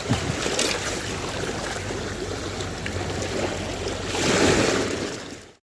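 Waves washing and lapping as a steady noise, which swells about four seconds in and then cuts off abruptly near the end.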